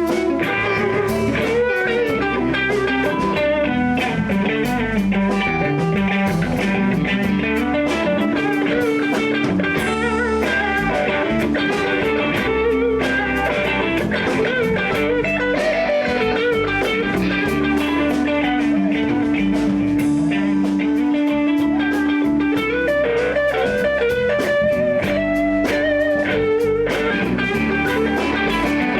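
Live blues band playing an instrumental passage: guitar over bass and drums, with some long held notes.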